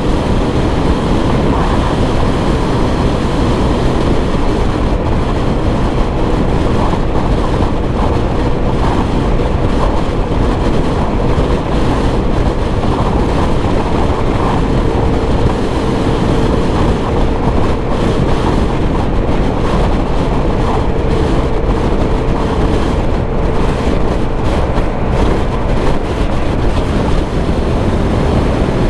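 Heavy wind noise on the microphone over the steady running of a Suzuki Burgman 125 scooter's single-cylinder engine at cruising speed on the highway, with a faint steady drone that comes and goes.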